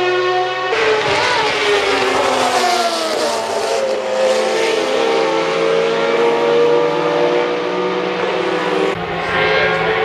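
Several Group C sports-prototype race cars passing at speed, their engine notes falling in pitch as they go by and then holding steadier as they pull away. The sound changes abruptly about a second in and again near the end.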